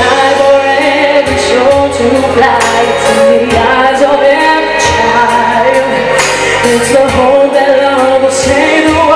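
Live singing: a young male singer's high voice sings long held notes with vibrato into a handheld microphone, over instrumental accompaniment with a steady low bass line.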